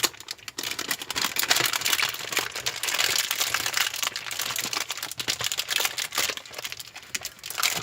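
Plastic snack packaging crinkling and crackling as it is handled, a dense run of fine crackles that dies down near the end.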